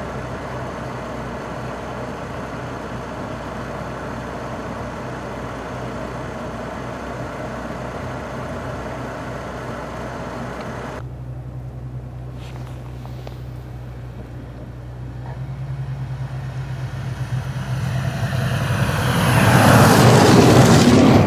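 A steady rushing noise with a low hum through a snowstorm. After an abrupt change, a vehicle on a snowy road draws near, its tyres hissing through the slush, and passes loudest near the end.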